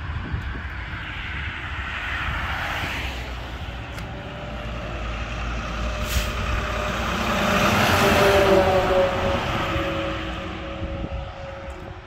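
Semi truck driving past, growing louder to a peak about eight seconds in and then fading as it goes away, with a steady drone of tones near its pass. A car goes by in the first few seconds.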